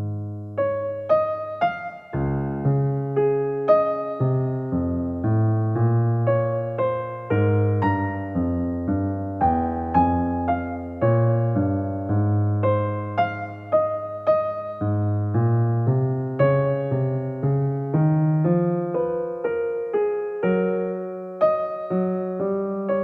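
Background piano music: a gentle melody of separate struck notes with a steady pulse.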